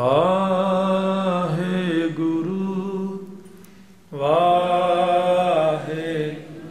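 Sikh devotional chanting: two long sung phrases, each opening with a rising swoop in pitch and then held, with a short pause between them.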